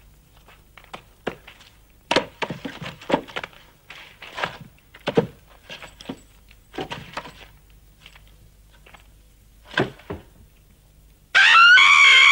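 Wooden knocks, thuds and scraping as things are handled and moved about. About eleven seconds in comes a woman's loud, high-pitched scream, the loudest sound here: a scream of fright.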